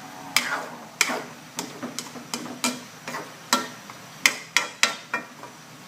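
Spatula knocking and scraping against a wok as chunks of pork, potato and carrot are stirred, giving a series of irregular sharp clacks, roughly two or three a second.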